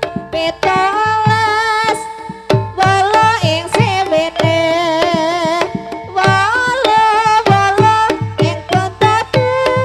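Javanese gamelan music for ebeg: kendang hand-drum strokes repeating under a wavering, ornamented melody line, in a fast, driving rhythm.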